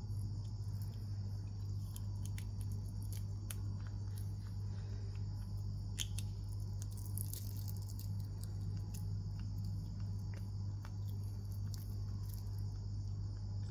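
Baby monkey chewing a cicada: scattered crisp crackles and clicks of the insect's shell and wings being bitten, busiest around the middle, over a steady low hum.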